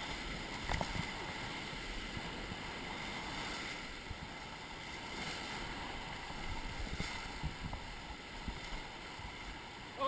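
Steady rush of river water around a paddled raft, with wind noise on the microphone and a few faint knocks.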